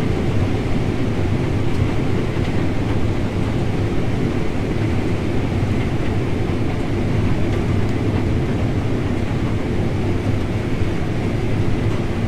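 Combine harvester running steadily while shelling corn, heard from the cab, with a metallic tinging that the operator puts down to a bent feeder house bar.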